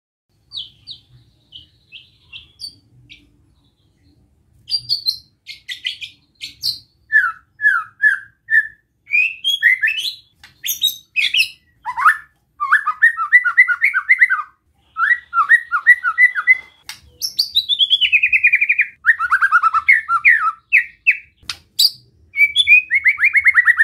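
White-rumped shama singing its besetan song, the challenging song used to provoke rival shamas: a few soft notes, then from about four seconds in a loud, fast run of whistled notes, rapid trills and falling sweeps, with rasping descending phrases near the end.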